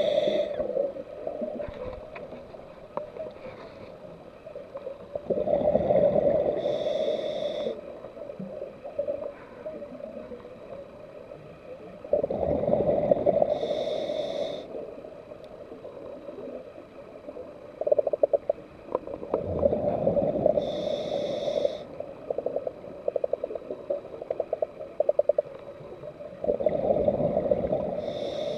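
Scuba regulator breathing underwater: about every seven seconds a rush of bubbles comes with a hissing whistle from the regulator, five breaths in all. Quieter gurgling and quick bubbly rattles fill the gaps between breaths.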